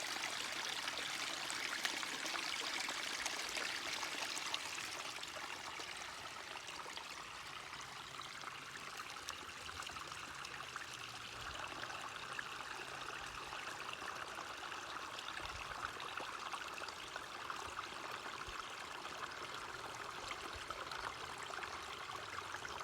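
Running water of a forest stream, a steady rush and trickle, a little louder in the first few seconds.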